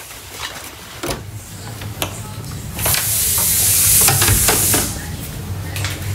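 Phone-camera handling noise as the phone is carried about: scattered knocks and rustling, with a loud hissing rush for about two seconds in the middle, over a steady low hum.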